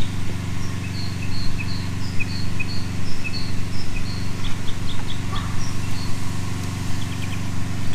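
Birds chirping in runs of short, high, quickly repeated notes over a steady low hum.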